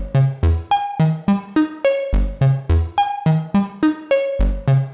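Eurorack modular synthesizer played by a Make Noise BRAINS and Pressure Points analog step sequencer, which advances one stage per clock pulse. It plays a steady run of short, decaying notes at several pitches, about four a second, with low bass notes among them, in a short melodic pattern that repeats.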